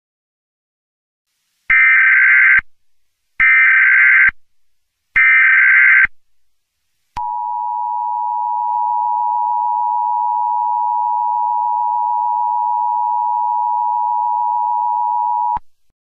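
Emergency Alert System header: three identical bursts of shrill, warbling SAME data tones, each about a second long, encoding the alert. These are followed by the EAS two-tone attention signal, a steady tone held for about eight seconds that cuts off suddenly, which announces that an emergency message follows.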